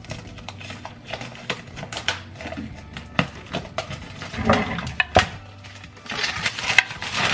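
Thin plastic grocery bag crinkling as it is slit open with a large kitchen knife, with many small clicks and knocks from the knife and handling, then a wooden cutting board knocked and moved about, loudest near the end.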